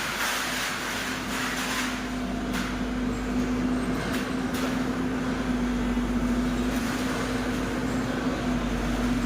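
Excavator engine running steadily with a constant drone, broken by a few brief hisses.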